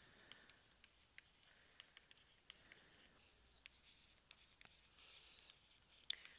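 Faint taps and scratches of a stylus writing on a tablet screen: a string of light, irregular clicks as pen strokes go down, with a brief scratchy stretch about five seconds in and a sharper tap near the end.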